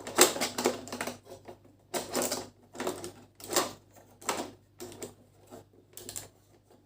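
Ring light and stand parts being handled and fitted together: irregular clicks and rattles of plastic and metal pieces, a burst every half second to second.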